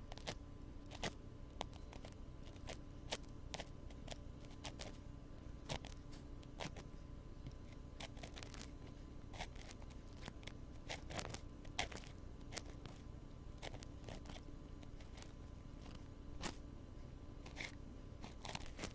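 Wooden ear pick scratching and tapping on a binaural microphone's ear: irregular crisp clicks and scrapes, a few louder ones now and then, over a steady low hum.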